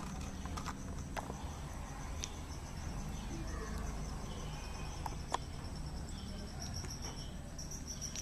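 A high, evenly pulsed chirping like an insect's, growing louder near the end, over a low steady background rumble with a few faint clicks.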